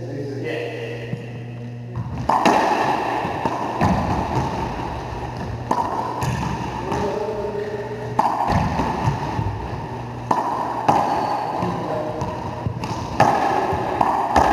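Racquetball rally: sharp smacks of the ball off racquets and walls, one every second or two, each ringing on in the echo of the enclosed court.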